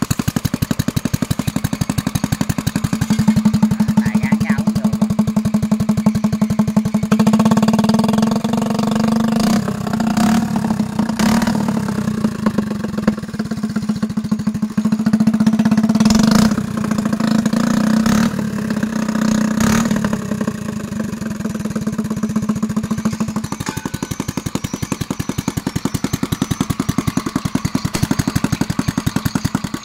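Mitsubishi GM182 single-cylinder petrol engine running through a short open exhaust pipe with no muffler. It speeds up about three seconds in, is held at higher revs with some ups and downs on its hand throttle, and drops back to a lower speed near the end, with a few sharp clicks along the way.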